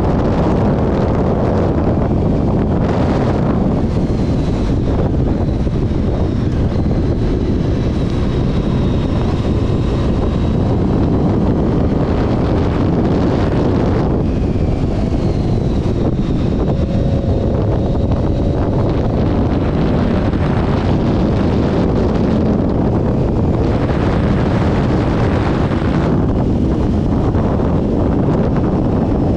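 Heavy wind buffeting the microphone of a moving Honda VFR750 motorcycle, with its V4 engine running steadily underneath at cruising speed.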